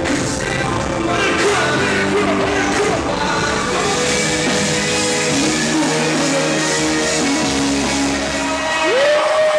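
Loud rock-style band music with singing and electric guitar. Near the end a long note slides up and then starts to fall.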